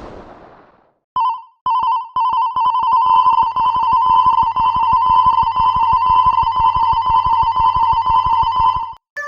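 Electric bell ringing in a fast continuous trill, a level-crossing alarm sound effect: two short rings about a second in, then a long steady ring that cuts off near the end.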